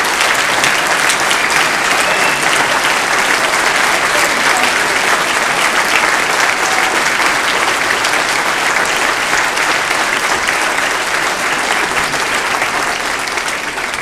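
Audience applauding: many hands clapping in a dense, steady wash that dies down near the end.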